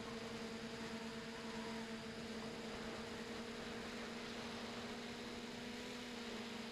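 Multirotor motors and propellers of an RC tricopter, heard from on board: a steady hum with a hiss over it.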